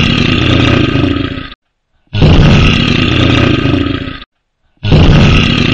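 Bear roar sound effect, repeated: three long, loud roars of about two seconds each with short silent gaps between them.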